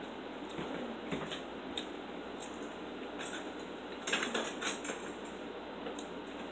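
Eating utensil scraping and clicking against a dinner plate as food is cut and picked up, with a cluster of scrapes about four seconds in, over a steady faint hiss.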